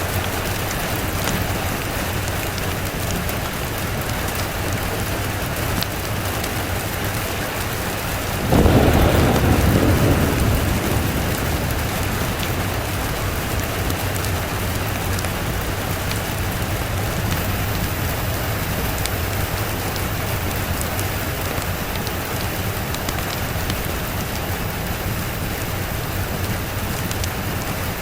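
Steady heavy rain. A single thunderclap breaks in about eight seconds in, rumbling low for a couple of seconds before fading back under the rain.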